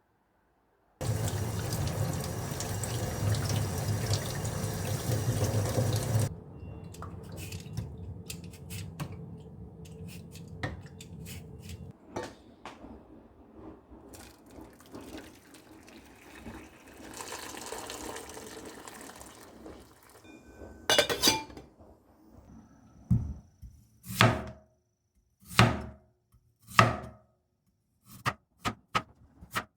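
Tap water running hard into a sink for about five seconds, then a quieter stretch of water and small handling clicks. Near the end come several sharp clacks of hard objects being set down.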